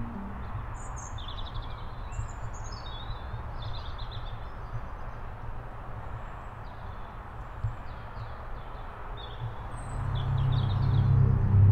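Small birds chirping in short repeated phrases over a steady low outdoor rumble. About ten seconds in, a low droning hum swells up and grows louder.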